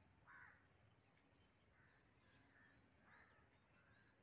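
Near silence: faint outdoor ambience with a few short, faint bird calls.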